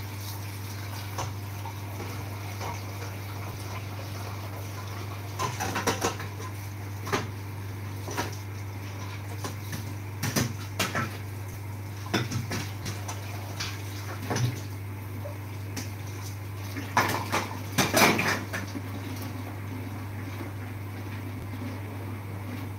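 Kitchen cookware handling: pots, pans and utensils knocking and clinking now and then over a steady low hum, with the loudest clatter about three-quarters of the way through.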